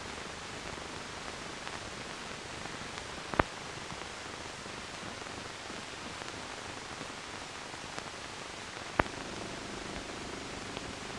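Steady hiss of an empty soundtrack on a silent newsreel transfer, broken by two sharp clicks several seconds apart.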